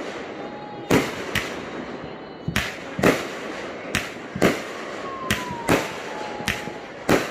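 Aerial fireworks launching and bursting in quick succession: about ten sharp bangs in seven seconds, several coming in pairs about half a second apart.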